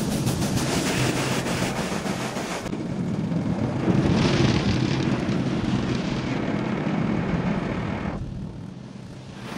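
Automatic car wash heard from inside the car cabin: water spray and cloth brushes washing over the windshield and body, a steady rushing that dies down sharply near the end.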